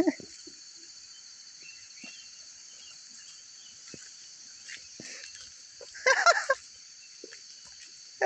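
Steady high-pitched chirring of an insect chorus in dense vegetation, with a short pitched call about six seconds in.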